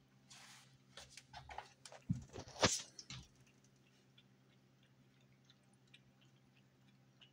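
Cat lapping water from an electric pet drinking fountain: soft, irregular licking clicks, with a louder flurry of clicks and rustles in the first three seconds, over the faint steady hum of the fountain's pump.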